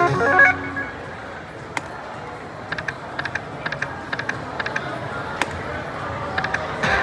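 Crazy Coin video slot machine: the last notes of its win jingle die away, then come runs of short electronic ticks and pings as the reels spin and stop, over steady background noise.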